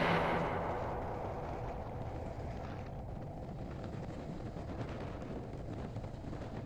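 Background music dies away in the first second. A faint, steady rumble of a motorcycle on the move follows: engine and wind noise, with no clear tone.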